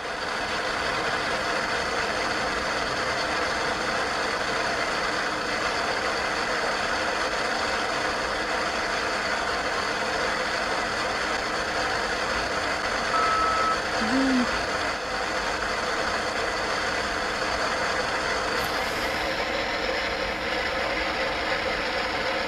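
Steady hiss of static with faint steady humming tones under it. A short beep sounds about 13 seconds in, followed by a brief low warble.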